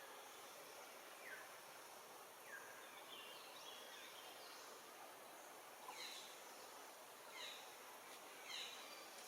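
Faint outdoor background hiss with short, falling chirps from birds, a few at first and then in quick clusters of several notes from about six seconds in.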